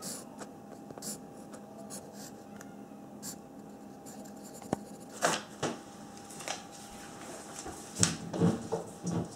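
Wooden pencil scratching on a paper sticky note in short writing strokes, then a few louder paper rustles. Near the end come a cluster of knocks and rubs as the note is pressed onto a wall by hand; these are the loudest sounds.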